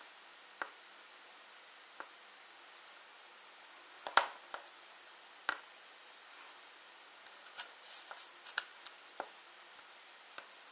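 Scattered light clicks and taps of small handmade toy parts being handled and set down on a table, over a faint steady hiss. The loudest tap comes about four seconds in, and a quicker run of taps follows near the end.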